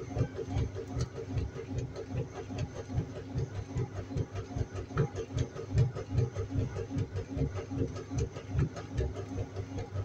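Washing machine running: a steady motor hum under an uneven low rumble that pulses a few times a second as the drum turns the load.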